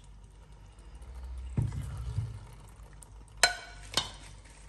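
Serving spoon scooping chicken curry from a bowl onto a plate: soft scraping and stirring of the thick curry, then two sharp clinks of the spoon against the dishes near the end.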